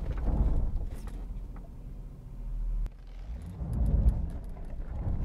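Jaguar XK8 braking on loose gravel, heard from inside the cabin, as the anti-lock brakes are provoked into action: a low tyre-and-gravel rumble that swells twice, with one sharp click a little past halfway.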